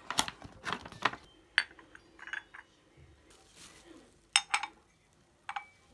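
Tableware clinking as it is handled and set down: a few quick clinks early, two more about four and a half seconds in, and one near the end that rings briefly.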